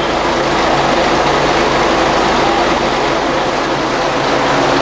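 A Volvo coach's engine idling at the stop, a steady, even hum.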